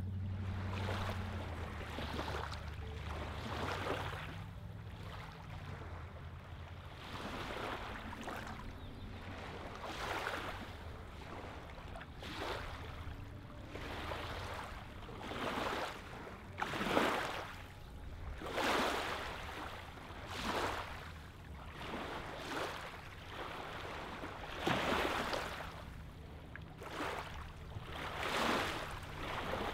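Small lake waves lapping onto a gravel and pebble shoreline, a soft wash of water every second or two, with a few louder splashes in the second half. A faint low steady hum runs underneath, strongest at the start.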